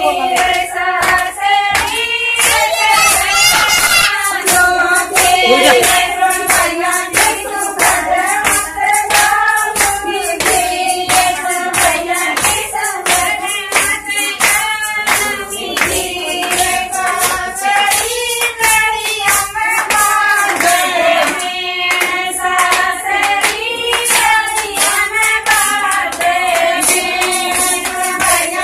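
A group of women singing a folk song together, with hand-clapping keeping a steady beat throughout.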